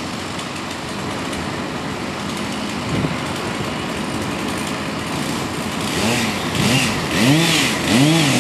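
Chainsaw cutting through the tree trunk, running steadily under load, then from about six seconds in revved up and down again and again in quick blips.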